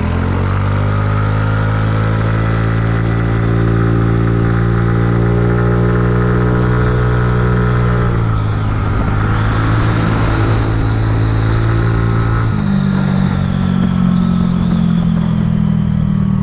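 Kymco People 250 scooter's engine heard while riding: it picks up speed at the start and holds a steady note, then drops in pitch about eight seconds in and changes again about four seconds later. The exhaust leaks have been sealed with JB Weld high-heat epoxy, and the owner finds it nice and quiet.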